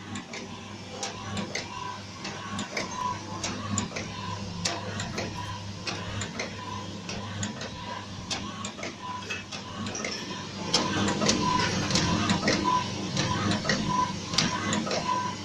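Homemade electric-driven PCP high-pressure air pump running: a steady low motor hum with clicks and a short high note repeating about every two-thirds of a second as the pump cycles. It gets louder about two-thirds of the way through.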